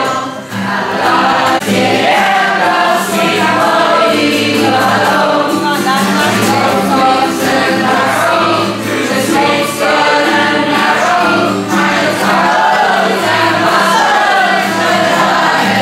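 A group of voices singing a song together in chorus, over strummed acoustic guitars.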